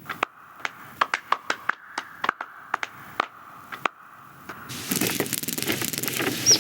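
Animated-film sound effects: a series of sharp, irregular clicks and ticks over a faint hum. About two-thirds of the way through they give way to a louder, dense clatter of busy activity.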